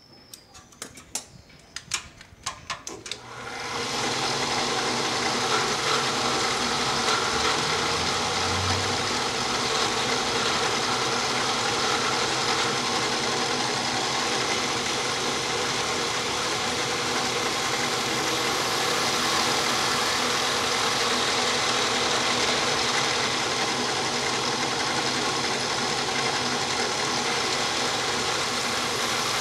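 A few sharp clicks and knocks, then an industrial electric drill, used as a homemade lathe, starts about three seconds in. It runs at a steady speed, turning a white plastic coil bobbin against a cutting tool clamped in a vise.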